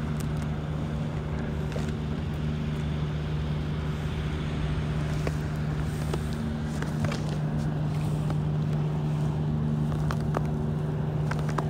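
Steady low drone of a ferry's diesel engines, one unchanging pitch with overtones, with a few faint clicks over it.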